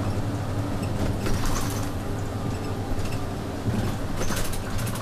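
Inside a moving city bus: the bus engine's steady low drone, with short bursts of rattling and clattering about a second in and again near the end.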